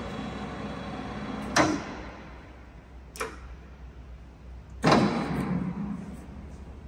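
Mecca Turn 460x1000 lathe running, then metal clunks of its gearbox levers being shifted to change the power-feed direction: a loud clunk about a second and a half in, after which the running hum drops, a lighter click around three seconds, and another loud clunk near five seconds with a ringing tail.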